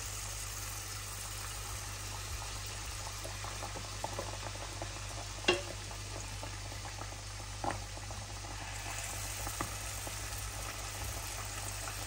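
Handesh batter deep-frying in hot oil in a frying pan: a steady sizzle and bubbling, with a few sharp clicks, the loudest about halfway through.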